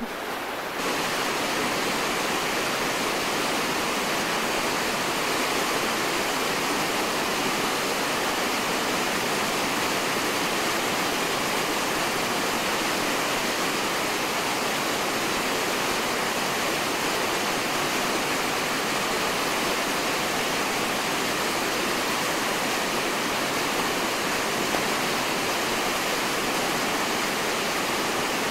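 Whitewater rapids of a boulder-strewn river, rushing and churning in a steady roar of water. It jumps up to a constant level about a second in.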